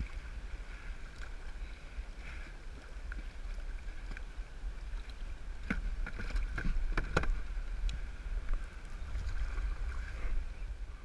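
Paddle strokes and water splashing and lapping around a sit-on-top sea kayak's hull, over a low steady rumble of wind on the microphone. A few sharp knocks of gear against the hull come about six to seven seconds in.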